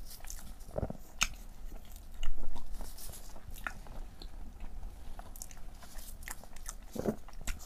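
A person biting and chewing a soft, sticky glutinous-rice dessert with cream filling (xue mei niang), with short mouth clicks and smacks. A louder, noisier moment comes about two seconds in.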